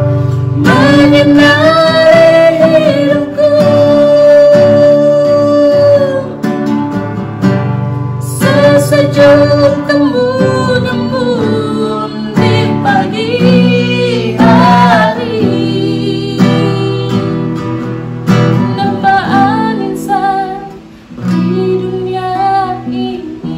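Music: a song with a singing voice holding long notes over plucked guitar chords.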